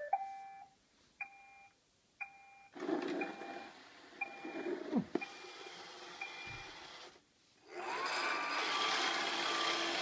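iRobot Roomba 555 robot vacuum starting a cleaning run: the end of its rising start-up chime, then short electronic beeps about once a second while its drive motors whir as it backs off the dock. About eight seconds in, the vacuum motor and brushes start with a steady whir and a rising whine, a rough noise that the owner likens to a tractor.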